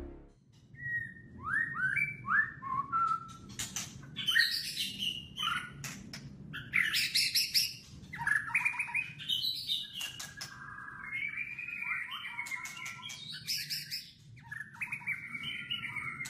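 Wild birds chirping and calling in repeated bursts of short, quick notes, some of them sharp and clicky, over a faint steady low rumble.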